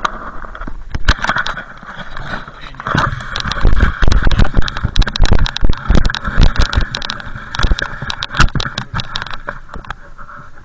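Snowboard moving through deep powder snow, heard through a camera mounted on the board: a steady hiss of snow with many sharp knocks and thumps from the board and mount.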